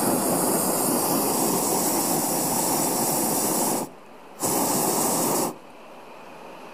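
Hot-air balloon's propane burner firing: a long blast that cuts off about four seconds in, then after a short pause a second blast of about a second before it shuts off.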